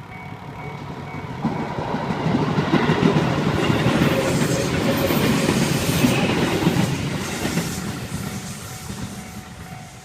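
A Tōbu Utsunomiya Line train passing over a level crossing, its wheels rumbling and clattering on the rails. The sound builds about a second and a half in, is loudest in the middle and fades away near the end. The crossing's warning bell rings steadily behind it and comes through again as the train goes.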